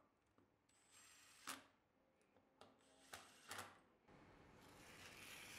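Faint, brief runs of a cordless impact driver snugging bolts into a steel table assembly, three short bursts in a few seconds. A steady scraping starts about four seconds in.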